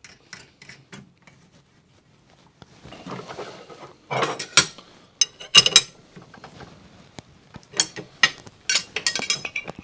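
Steel dado blades and arbor wrenches clinking and clattering on a table saw arbor as the arbor nut is fitted and tightened with two wrenches. Scattered sharp metal clicks, with the loudest clatters about four and five and a half seconds in.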